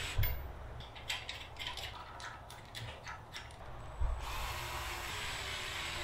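Cordless drill driving the handlebar clamp bolts on a pocket bike's fork risers: a run of irregular clicks and knocks, then about two seconds of steady running from about four seconds in.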